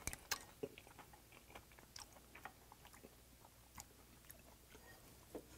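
A person chewing a mouthful of rice and seasoned oysters, close to the microphone: faint, scattered wet mouth clicks and smacks.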